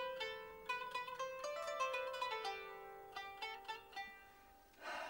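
Instrumental background music of plucked strings: a run of struck notes that ring and fade, the melody stepping downward, with a brief burst of noise near the end.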